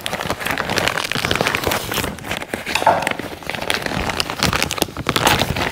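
Plastic parts bag crinkling and rustling as it is torn open and handled by hand, a dense run of small crackles.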